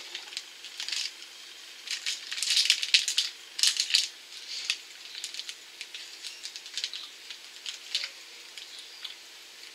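Plastic snack-bar wrapper crinkling as it is handled and peeled back, in short irregular crackly flurries, busiest a couple of seconds in.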